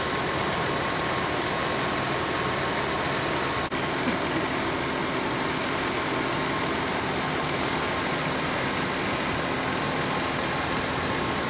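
Fire engines' diesel engines running steadily, a constant rumble and hiss with a faint steady hum, broken by a brief dropout about four seconds in.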